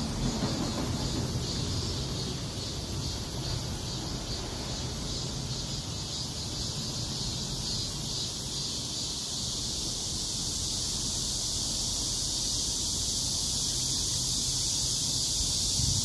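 Steady outdoor ambience under trees: a constant high hiss with a low rumble beneath it.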